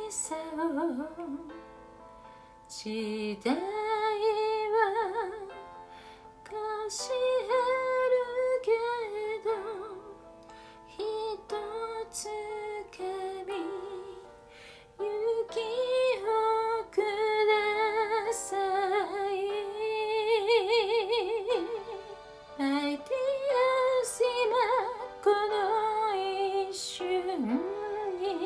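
A woman singing a slow Japanese song in sung phrases with wide vibrato on the held notes, over a soft instrumental backing track that carries on between her phrases.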